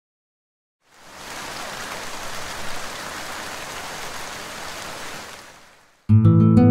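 Rain sound effect: a steady hiss of heavy rainfall that fades in about a second in and fades away about five seconds in. Near the end, louder music with plucked-string notes starts abruptly.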